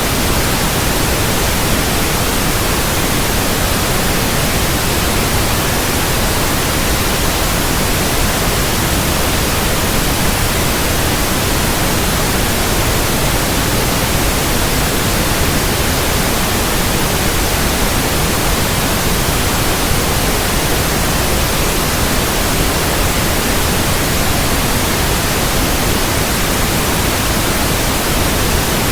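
Steady, unchanging white noise: an even hiss spread across all pitches, with no pauses or events.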